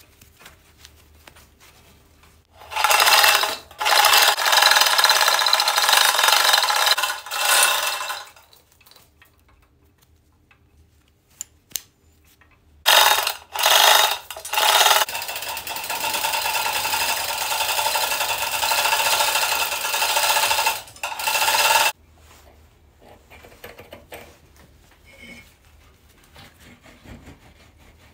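A power tool running in two long stretches, the first starting about 3 seconds in and the second, longer one about 13 seconds in, with quieter handling clicks between them.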